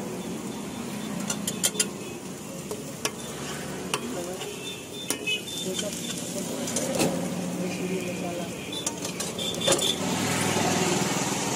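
Metal spatula clicking and scraping on a flat griddle while dosas cook, over a steady sizzle. The clicks come irregularly, bunching up about ten seconds in.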